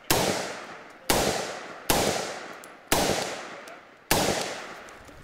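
Five single rifle shots from a short-barrelled Sig Rattler in .300 Blackout, fired at an unhurried pace about one a second, each shot echoing and trailing off before the next.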